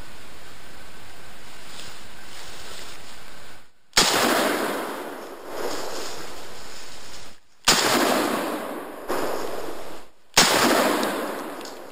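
Three rifle shots from a scoped hunting rifle, fired at wild boar, the first about four seconds in and the others roughly three seconds apart, each dying away in an echo through the woods. A steady hiss comes before the first shot.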